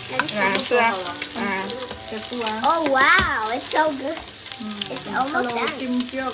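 Prawns and egg sizzling in hot oil in an electric pressure cooker's inner pot, with a spatula clicking and scraping against the pot as it stirs. A person's voice, drawn out like singing, sounds over the frying, loudest about halfway through.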